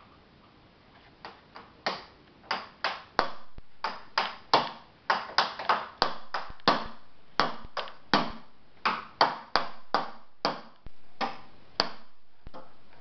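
A toddler beating wooden boxes with a stick as drums: a run of about thirty sharp knocks in an uneven rhythm, roughly two or three a second, each ringing briefly. The knocks start about a second in and stop near the end.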